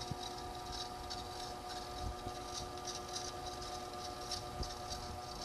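ProForm Crosswalk Advanced 525x treadmill running, with a steady motor whine and a light rhythmic squeak about twice a second. The owner traces the noise to a dirty roller.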